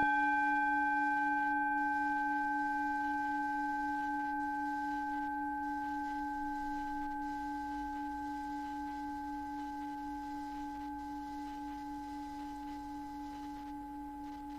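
A struck bell-like ringing tone, like a singing bowl, sounds once at the start and rings down slowly over the following seconds with a few higher overtones. Under it runs a steady, gently pulsing drone tone used as a meditation frequency.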